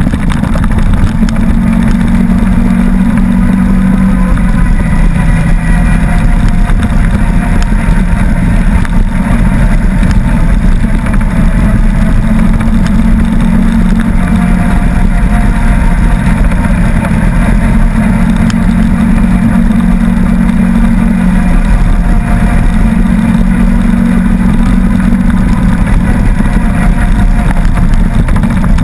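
Side-by-side UTV engine running loud and steady while driving along a gravel trail, its pitch rising and falling a little with the throttle.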